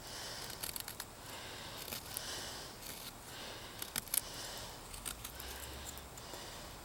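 Victorinox Trekker's main blade cutting into wood in slow, repeated scraping strokes, a little under a second apart, with a few small clicks.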